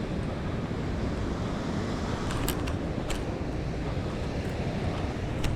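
Steady rush of river water cascading over a waterfall and rock steps, with wind buffeting the microphone. A few brief clicks about halfway through and near the end.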